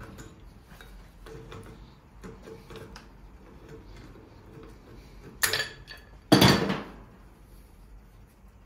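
Pipe wrench clicking and scraping on a threaded steel pipe fitting as it is worked loose in short strokes, then two loud metal clanks about five and a half and six and a half seconds in, the second one longer.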